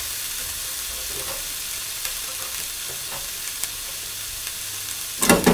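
Carrot, green bean and baby corn sticks sizzling in oil in a frying pan, a steady hiss. Near the end a few loud sharp knocks as the vegetables are stirred in the pan.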